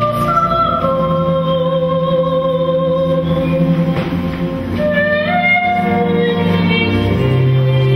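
Slow church music: long held notes stepping slowly up and down in pitch, sung over a sustained lower note.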